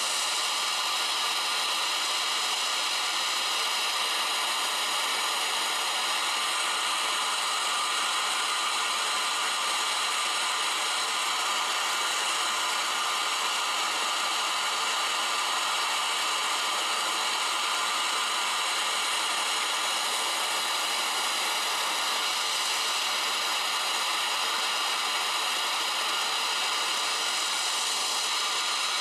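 Gas torch burning with a steady rushing hiss, its flame played into a ceramic melting dish to melt down recovered metal.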